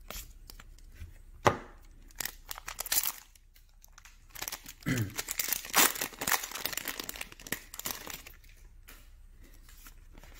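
A Magic: The Gathering booster pack's foil wrapper being torn open and crinkled, in short bursts with a sharp crack about one and a half seconds in.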